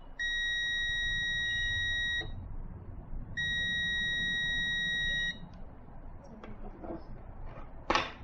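DT-19N digital multimeter's continuity buzzer beeping twice, each a steady high tone lasting about two seconds, as the probes touch two points on a phone circuit board: the beep signals that the two points are connected.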